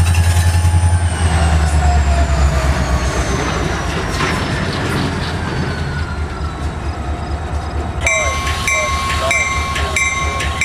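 EMD 645 diesel prime mover running with a fast, heavy low firing beat that eases off about a second in, while a whine slides slowly down in pitch as the engine winds down. About eight seconds in, a repeated ringing signal starts, sounding roughly every two-thirds of a second over a steady tone.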